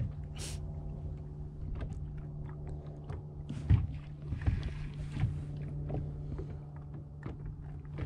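A boat motor hums steadily. Scattered light knocks and clicks sound over it, the loudest a little past the middle, with a short hiss about half a second in.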